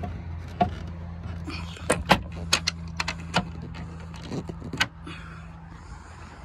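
A series of sharp clicks and knocks, about nine over five seconds, as the side-entry filler cushion of a fibreglass deck boat is handled and folded, over a steady low hum.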